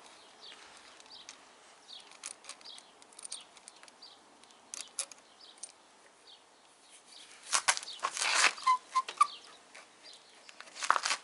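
Handling noise at a motorcycle's handlebar end: light clicks and scraping as a screwdriver turns out the bar-end screw, then rubbing and rustling as the rubber throttle grip is twisted and worked by hand, loudest in a cluster of bursts with a few short squeaks past the middle and again just before the end.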